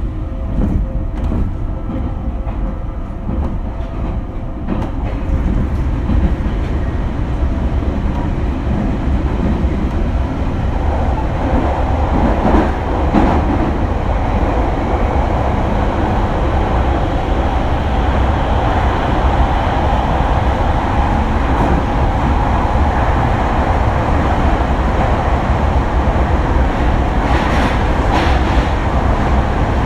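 Running noise heard from inside an E721 series 1000 subseries electric train in the Senzan Tunnel: a loud, steady rumble of wheels on rail. A few clicks come in the first seconds, and the noise grows fuller and louder from about ten seconds in.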